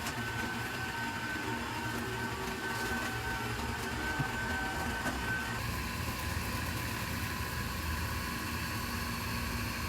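Liectroux C30B robot vacuum running in auto-clean mode with its water tank and mop fitted: a steady motor hum with a thin whine that drops slightly in pitch about halfway through.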